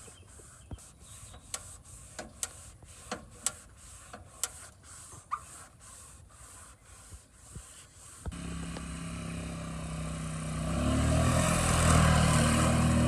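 Faint scattered clicks and ticks, then a sudden cut about eight seconds in to a motor vehicle's engine running, which grows louder a couple of seconds later.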